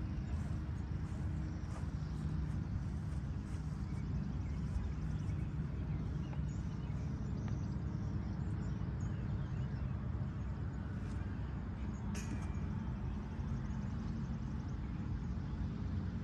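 Steady low rumble of wind buffeting the microphone, with a brief high chirp about twelve seconds in.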